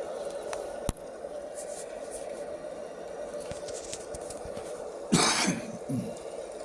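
A person coughs once, loudly, about five seconds in, over a steady background hiss, with a sharp click about a second in.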